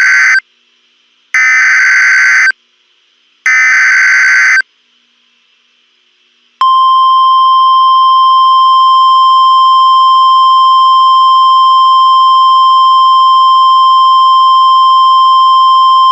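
Emergency Alert System SAME header: three harsh, buzzing two-tone digital data bursts, each about a second long and about a second apart, the first already under way. After about two seconds of silence, the NOAA Weather Radio warning alarm starts: one steady, piercing tone held for about ten seconds. Together they signal that a warning is being broadcast and switch on alert receivers.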